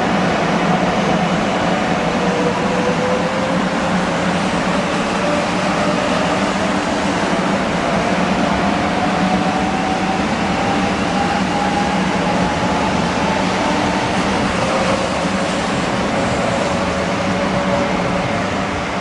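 Shinkansen train running loudly through the station, with a steady low hum and a whine that rises slowly in pitch as the train gathers speed.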